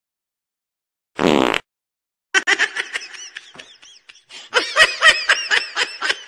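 A short, loud buzzy blast about a second in, then laughter in quick, repeated bursts that grow louder about four and a half seconds in.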